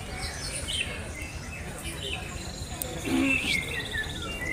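Several caged songbirds singing over one another in short chirps, whistled glides and trills, with a fast rattling trill about three seconds in.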